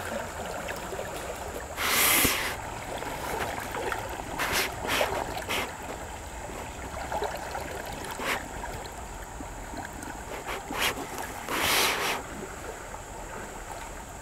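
Creek water sloshing around a small underwater camera held in a shallow stream, broken by several short splashes, the loudest about two seconds in and again near the end.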